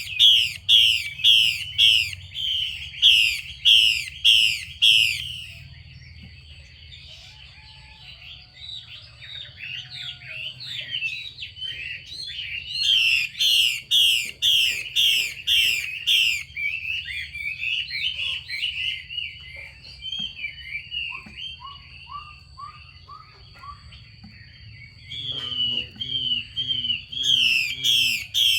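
Female Chinese hwamei giving rapid, repeated rasping 'xùy' calls, about two notes a second, in loud runs near the start, in the middle and near the end, with softer varied twittering between. This is the call keepers use to stir a male to sing.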